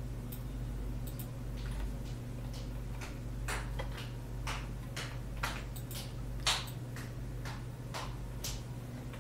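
Irregular clicks from a computer mouse and keyboard keys, more than a dozen, one louder than the rest about two-thirds of the way through, over a steady low hum.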